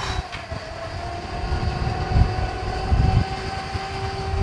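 Tow truck's hydraulic wheel-lift running as the lift arm is raised: a steady pump whine over the low rumble of the truck's 351 Cleveland V8, with a lower steady tone joining about three seconds in.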